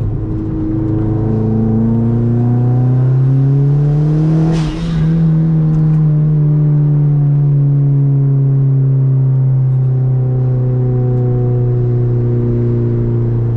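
Turbocharged Hyundai Genesis Coupe engine pulling in gear, its pitch rising for about four and a half seconds. There is a brief drop in sound at a gear change, then it runs on at a slowly falling pitch.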